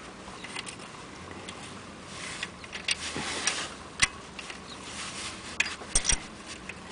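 Wrench working the lower alternator mounting bolt loose: irregular metallic clicks and scraping of the tool on the bolt and bracket, with the engine off.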